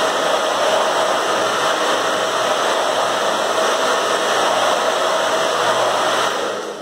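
Handheld hair dryer blowing steadily onto freshly painted MDF to dry the metallic PVA paint, a steady rush of air with a faint motor whine. It dies away near the end as it is switched off.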